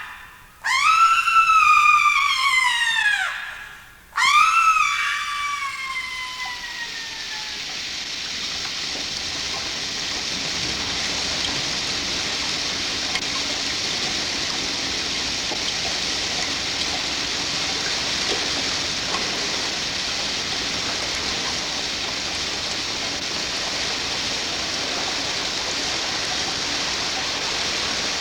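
Two high shrieks in the first few seconds, each rising sharply and then sliding down in pitch. From about six seconds in, a steady hiss of heavy rain takes over.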